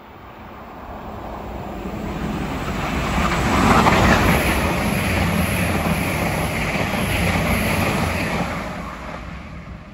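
Irish Rail InterCity diesel multiple unit running through the station at speed without stopping. The sound grows from the start, is loudest about four seconds in as the front of the train goes by, holds while the carriages pass, then fades near the end.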